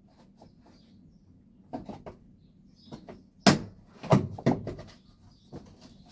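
A few sharp knocks and clatters of parts being handled, the loudest about three and a half seconds in, followed by a quick cluster of smaller knocks.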